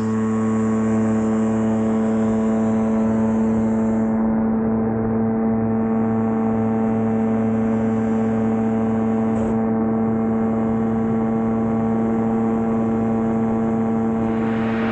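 Microlight trike's engine and pusher propeller at full takeoff power, a steady drone through the takeoff roll and climb-out. Near the end, a brighter hiss swells in over it.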